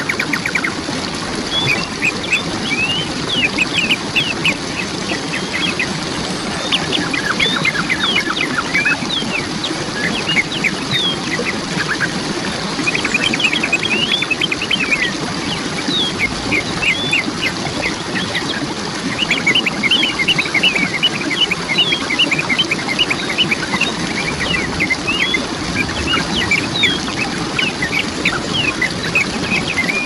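Steady rush of a waterfall, with birds chirping over it in bouts of quick, short, downward-slurred chirps.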